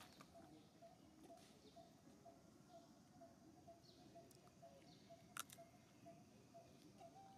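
Near silence: faint outdoor ambience with a soft call repeating two or three times a second, and one sharp click about five seconds in.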